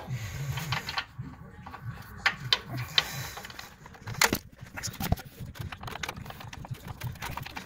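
Hand tools and metal suspension parts clicking and knocking while shock absorbers are fitted, with a run of quick small clicks and a few sharp metallic knocks, the loudest about four seconds in.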